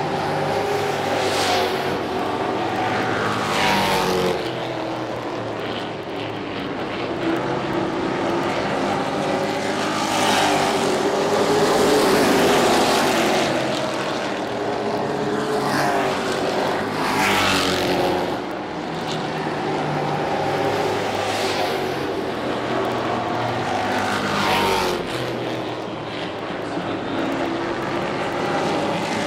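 Race truck engines running at speed on an oval track. Trucks pass close by over and over, each swelling loud and sweeping down in pitch as it goes past.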